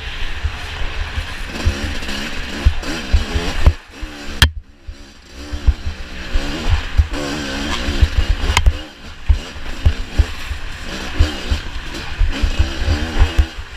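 Off-road racing dirt bike engine revving up and down as the rider works the throttle over rough ground, with heavy low thumping and buffeting on the microphone. The throttle is chopped about four seconds in and the engine nearly falls away, then picks back up.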